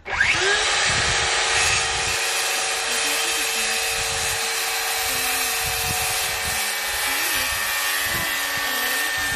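Handheld circular saw spinning up with a quick rising whine, then cutting steadily through a wooden board.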